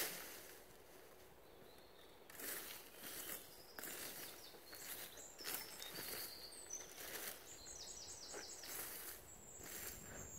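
Dry leaf litter and twigs rustling and scraping in a series of short strokes as the forest floor is raked with a stick. Small birds chirp, and one gives a quick trill of repeated notes about eight seconds in.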